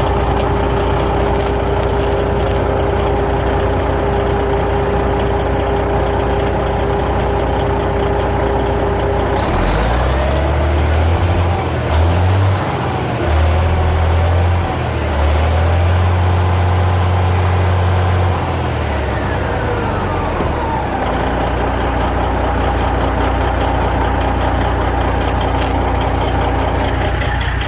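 Detroit Diesel Series 60 inline-six diesel in a semi truck idling, then revved up about ten seconds in, held at high revs for several seconds, and let fall back to idle about twenty seconds in. The engine is gunned to put it under load and check for blow-by; the owner suspects a failed air compressor rather than worn rings.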